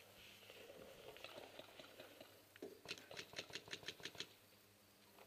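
A quick string of about nine paintball marker shots, sharp pops at roughly seven a second, a little past halfway through; otherwise faint.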